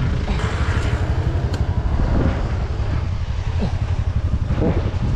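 TVS Ntorq 125 scooter's single-cylinder engine idling at a standstill: a steady low rumble.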